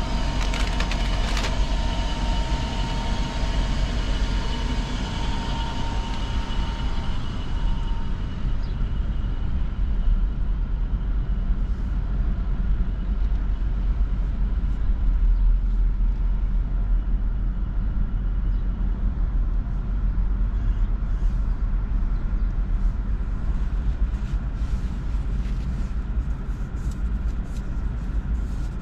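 Car running and driving, heard from inside the cabin as a steady low engine and road rumble. A thin steady whine fades out over the first several seconds, and a few light clicks come near the end.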